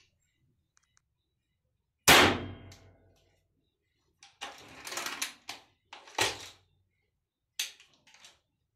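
NX100 spring-piston air rifle, now fitted with a steel spring in place of its nitro piston, being handled: a loud metallic clunk with a short ringing about two seconds in. Then a rough scraping stretch, another sharp knock and a few light clicks.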